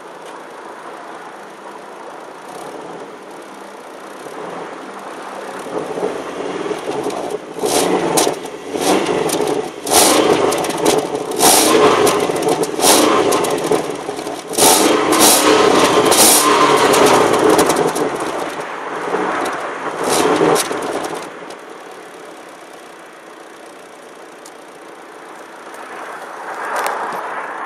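VAZ-2112 inline-four running through a Stinger Sport 'Subaru sound' aftermarket exhaust. It idles, then is revved in a series of sharp blips for about fifteen seconds, loudest in the middle, before settling back to idle.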